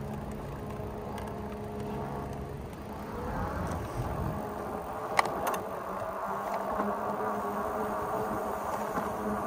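Electric bike motor whining under way. About three seconds in its pitch rises as it speeds up, then it holds steady. Two sharp clicks come a little after five seconds.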